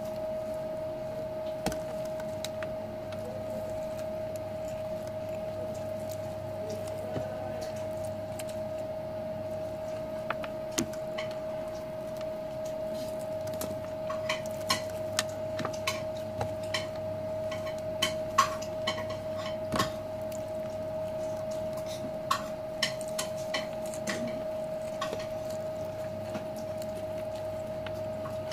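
Light clinks and taps against a plate as rice and chicken are eaten by hand, scattered and most frequent in the second half, over a steady humming tone.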